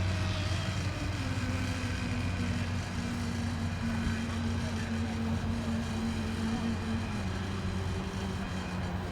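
Radio-controlled race boat motors running steadily at low speed as the boats come in after the race, with a second motor tone joining for most of the stretch.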